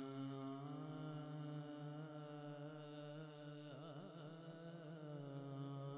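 Opening of a devotional naat: a steady held drone with a voice gliding through a wavering, ornamented phrase about four seconds in.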